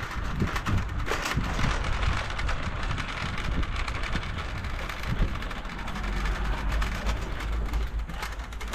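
Plastic shopping trolley rolling and rattling over paving, with wind rumbling on the microphone.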